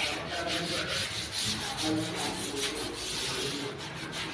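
Curtain fabric rustling and rubbing as it is handled up at the curtain rod, in irregular scratchy strokes.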